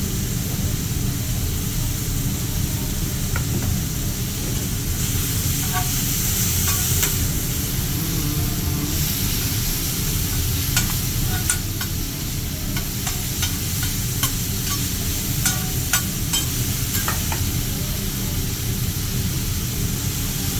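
Food sizzling on a hot teppanyaki griddle, a steady hiss that grows stronger about five seconds in, with a run of short sharp metallic clinks in the middle stretch.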